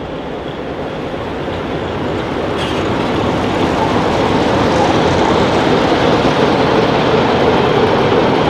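An ST43 diesel-electric locomotive with its Sulzer diesel engine, running light, passing close by and pulling away, its engine running heavily along with steel wheels on the rails. The sound grows louder over the first few seconds, then holds steady.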